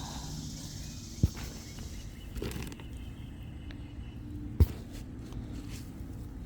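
Hands digging and rustling through potting soil and potato roots in a fabric grow bag, with two sharp knocks, one about a second in and one near the end.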